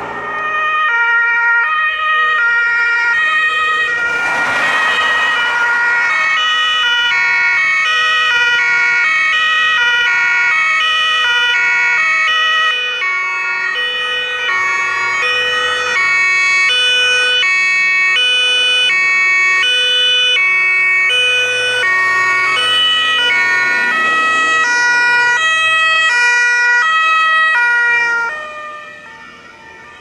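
German two-tone emergency-vehicle sirens (Martinshorn) on approaching rescue vehicles, sounding loudly as high and low notes alternating in a steady rhythm, with more than one horn sounding out of step. A passing car swells briefly about four seconds in, and the sirens fall away shortly before the end.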